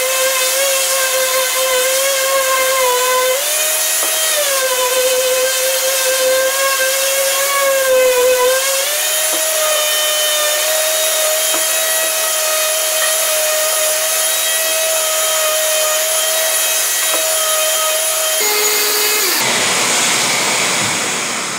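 Electric random orbital sander with 220-grit paper running with a steady high whine, rounding over the edges of a board. Its pitch sags and recovers as it is pressed onto the edges during the first several seconds, then holds higher and steadier. Near the end it is switched off and winds down, leaving a rushing noise that fades away.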